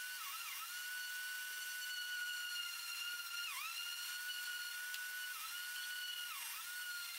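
Electric random orbital sander running with a steady high whine, its pitch dipping briefly about five times as it bogs under pressure against the plywood.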